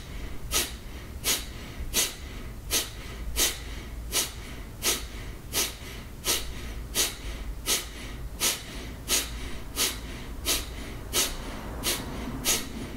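Kapalabhati breathing: short, forceful exhalations pushed out through the nose by snaps of the abdomen, each followed by a quiet passive inhale. They come in a steady, even rhythm of about three breaths every two seconds.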